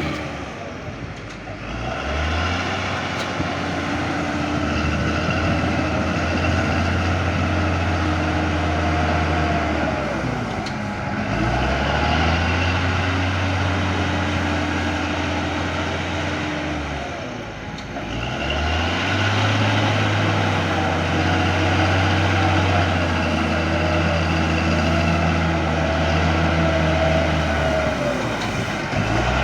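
Cat D6G bulldozer's diesel engine running hard. Its pitch sags and climbs back about every seven to ten seconds as the load and throttle change.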